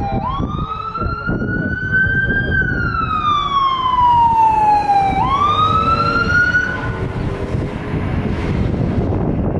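Ambulance's electronic siren in wail mode: it rises, falls slowly, then sweeps up again and cuts off about seven seconds in. Steady traffic rumble lies underneath.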